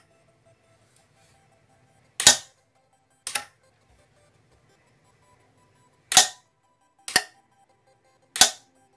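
Sharp metallic snaps of a 12V solenoid cabinet lock's spring-loaded slanted latch bolt, pushed in by hand and springing back out, a few times at irregular intervals about a second or more apart.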